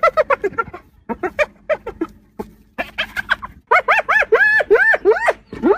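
Spotted hyena giggling: several bouts of rapid, high, short notes, the later ones longer and arching up and down in pitch, about five a second.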